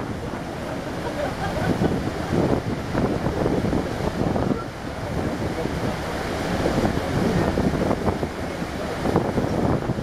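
Wind gusting across the microphone on a moving ferry's open deck, over a steady rush of sea water along the ship.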